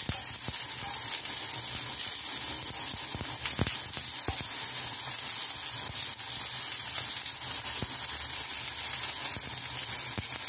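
Minced-fish and tofu balls sizzling steadily as they pan-fry in oil, with a couple of light clicks of chopsticks turning them in the pan a little before halfway.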